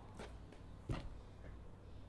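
Quiet room tone: a steady low hum, with a faint short click just under a second in.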